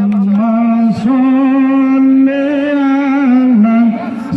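A voice singing a chant in long, held, slightly wavering notes, with a short break for breath about a second in.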